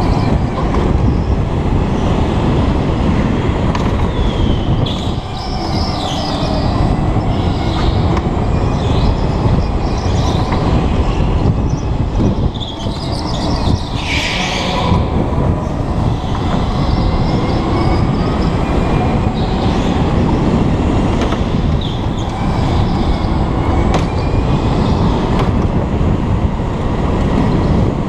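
Go-kart running flat out through the corners, heard from the driver's helmet: a steady loud rush of motor and wind noise with thin high whines that bend up and down through the turns, and a short brighter hiss about halfway through.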